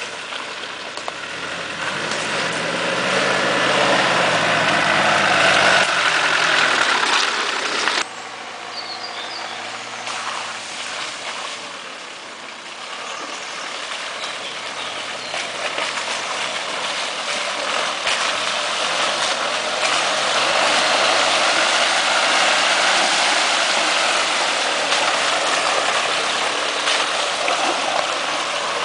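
Off-road 4x4 SUVs' engines working under load as they drive through mud on a rutted track, one rising in pitch and getting louder as it comes close. It cuts off abruptly about eight seconds in, then another vehicle's engine builds up and stays loud as it passes close by.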